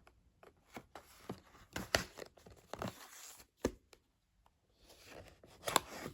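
Cardboard toy box being opened by hand: paper and card tearing and rustling in short bursts, with scattered sharp clicks and a brief pause a little past the middle.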